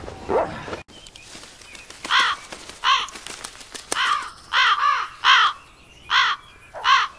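Crows cawing: a series of about eight harsh caws, some in quick pairs, starting about two seconds in.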